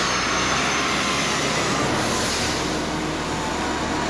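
Jet airliner passing low overhead with its landing gear down on approach: a steady roar from its engines, swelling and turning hissier about halfway through.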